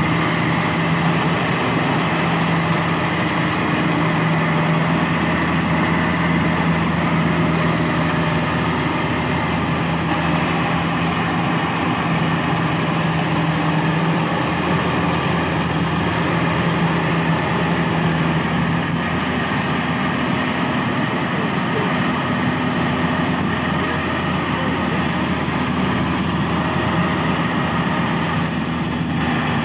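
Kubota DC70 combine harvester's diesel engine running steadily, its note shifting slightly about two-thirds of the way through.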